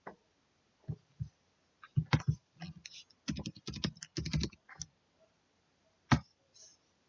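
Computer keyboard typing: a few separate key presses, then a quick run of keystrokes from about two seconds in until nearly five, and one last key press about six seconds in.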